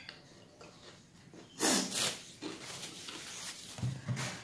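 A woman's sharp breath through the nose about a second and a half in, with a second, softer one just after. A few short, low vocal sounds come near the end.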